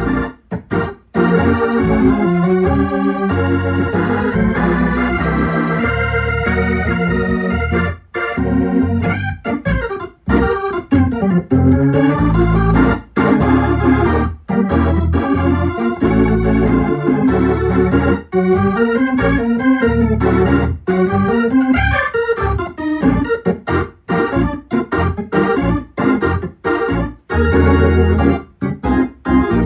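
Hammond C3 organ played through a two-speed Leslie 22R rotating speaker: sustained full chords over deep bass notes, broken by frequent short gaps between chords.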